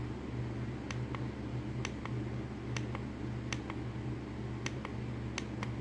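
Repeated small plastic clicks at an irregular pace, buttons being pressed on a DIGITEN plug-in thermostat to step its setting, over a steady low hum.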